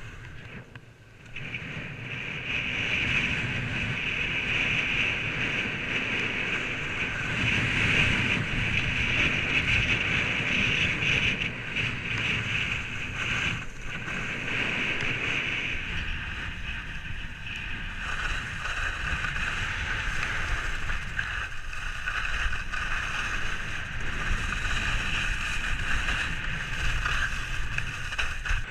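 Wind rushing over an action camera's microphone while skiing downhill, mixed with the skis hissing and scraping over groomed, packed snow. The noise is steady and grows louder about two seconds in.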